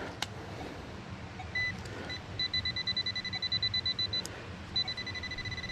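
Metal-detecting pinpointer beeping over a buried metal target. There is one short beep about one and a half seconds in, then a quick run of rapid beeps. From nearly five seconds in the tone runs almost steady, the sign that the tip is right on the metal.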